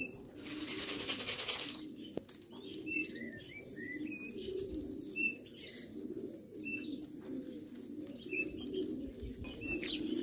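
Racing pigeons cooing steadily, with a brief flurry of wing-flapping about half a second in. Short high chirps from other birds run over the top.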